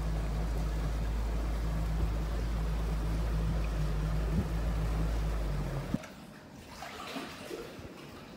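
Wind buffeting the microphone on a moving boat, a loud low rumble over a steady motor hum. It cuts off suddenly about six seconds in to a much quieter, patchy sound.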